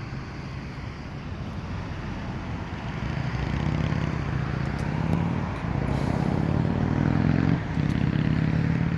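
A motor vehicle engine running steadily, getting louder about three seconds in.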